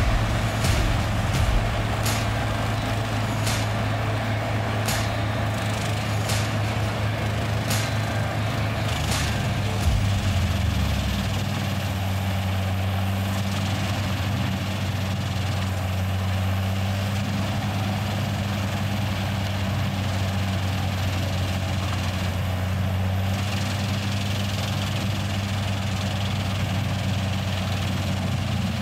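Large whole-tree wood chipper running under load as a log is fed into it, with sharp cracks about every 0.7 s for the first ten seconds. After that there is a steady heavy engine drone.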